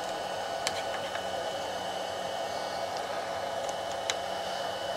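Hot air gun blowing with a steady hiss, with a few light clicks as a metal prying tool works at the glued seam of a plastic power-supply case.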